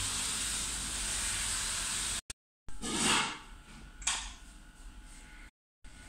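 A loud, steady hiss that cuts off abruptly about two seconds in. It is followed by short gaps of dead silence and two brief rustling bursts, then a faint background.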